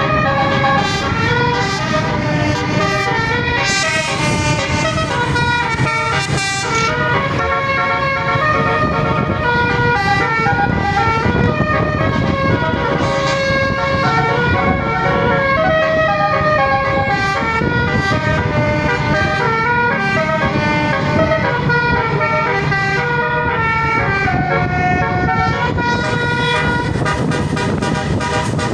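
A 12-note Basuri telolet air-horn set on a bus playing a continuous melody of short stepped horn tones, with a low rumble underneath.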